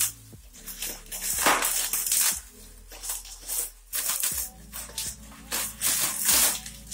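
Bubble wrap and plastic packaging crinkling and rustling in the hands as it is pulled open, in a string of short bursts, over faint background music.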